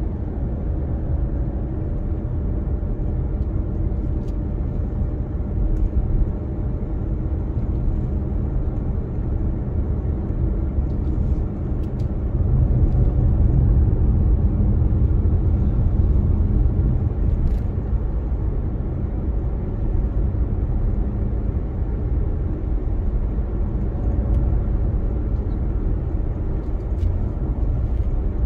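A car driving on city streets: a steady low rumble of road and engine noise, swelling a little around the middle.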